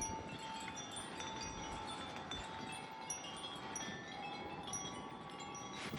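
Wind chimes ringing in gusty wind: scattered short, high tinkling tones at several pitches over a steady rush of wind.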